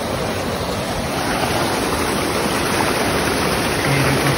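Steady rush of flowing water in a small hillside stream channel.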